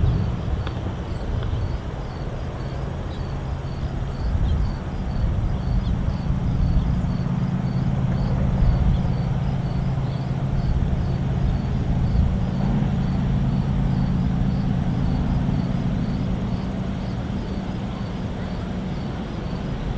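Norfolk Southern mixed freight train rolling past: a steady rumble of the cars on the rails, with a steady low hum under it.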